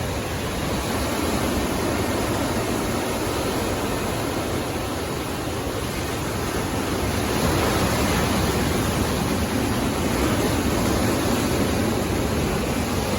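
Sea waves breaking and washing on a beach: a steady rush of surf that swells louder about seven seconds in.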